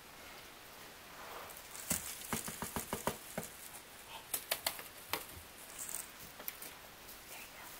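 A patter of light clicks and taps from a Bengal kitten at play, densest from about two to five seconds in, over faint room tone.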